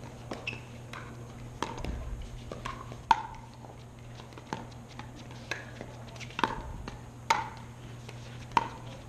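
Pickleball paddles striking a plastic ball during a doubles rally, with the ball bouncing on the hard court: a run of sharp pops about one a second, the loudest about three seconds in, over a steady low hum.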